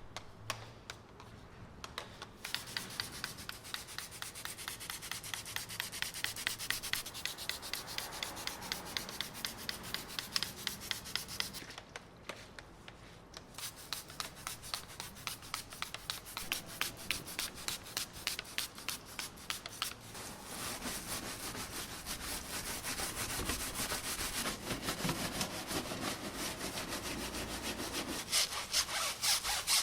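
Stiff detailing brush scrubbing a surface in quick, repeated back-and-forth strokes, several a second, with a short pause about twelve seconds in.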